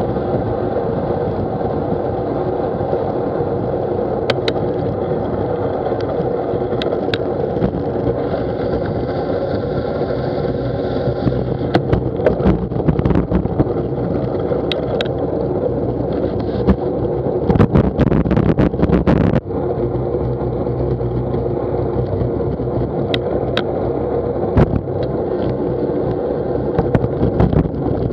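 Bicycle riding on a wet paved path: steady wind noise on the microphone over the rumble of the tyres, with scattered knocks and rattles from bumps, and a burst of heavy rattling about 17 to 19 seconds in.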